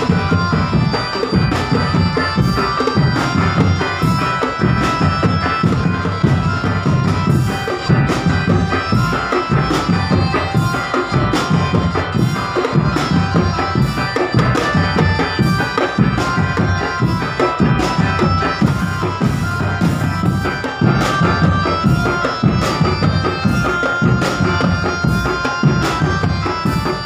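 East Javanese drum band playing: fast, dense drumming with regular sharp strikes on top, under a reedy wind instrument holding a melody line.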